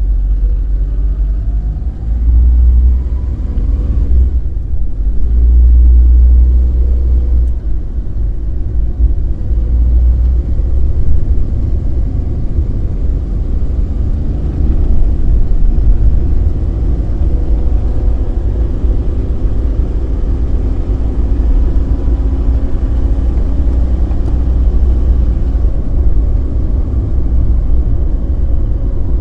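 Car driving: a steady heavy low rumble of engine and road, with the engine's pitch slowly rising and falling as the speed changes.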